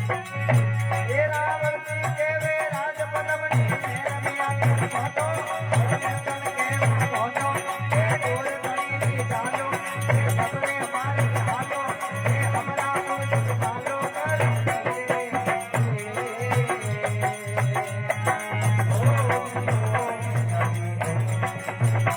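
Desi devotional bhajan music: a wavering melody over a steady, repeating drum beat.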